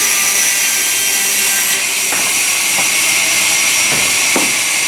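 Sawmill saw machinery running with a steady, high hiss, with a few faint knocks about two seconds in and again near the end.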